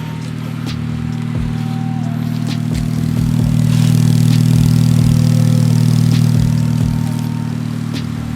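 2014 Honda Civic Si's 2.4-litre four-cylinder running through a DC Sports aftermarket catback exhaust, a steady low drone that swells louder through the middle and eases off near the end.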